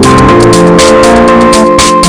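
Loud electronic background music: synthesizer notes over a steady drum beat.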